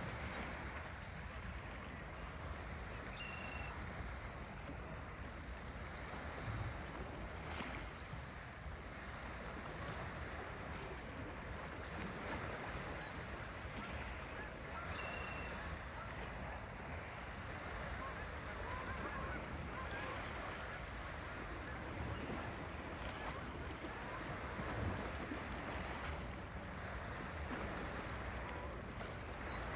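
A flock of Canada geese honking, faint and distant, over a steady rush of water and wind noise.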